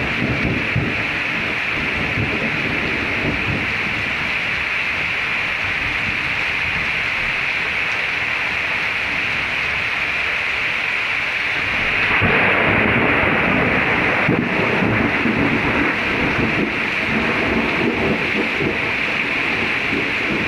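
Rain falling steadily in a thunderstorm, a constant hiss, with a rumble of thunder swelling about twelve seconds in and rolling on through the rest.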